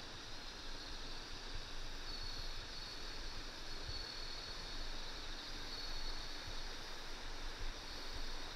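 Steady rushing of river water with insects trilling in a high, even band above it; a thin high tone swells and fades a few times.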